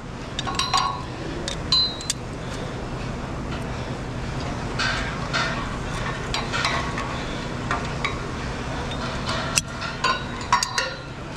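Metal climbing hardware clinking and clicking against a steel truss tower as a climber moves and re-clips lanyard hooks, scattered light strikes over a steady low hum.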